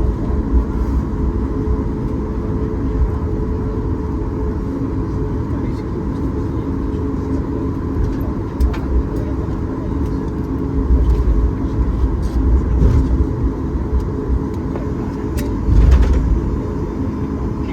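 Cabin noise of a Boeing 737 MAX 8 rolling on the ground after landing: its CFM LEAP-1B engines running near idle with a steady hum, over a low rumble from the landing gear that swells a few times.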